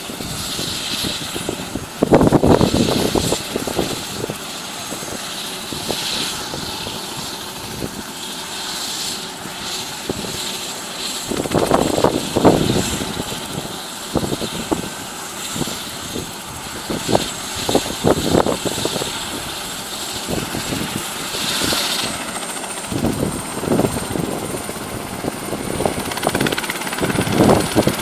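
Light turbine helicopter running on the ground with its main rotor turning, a steady high whine over the rotor and engine noise; the whine steps up slightly about three-quarters of the way through. Irregular gusts of rotor wash buffet the microphone several times.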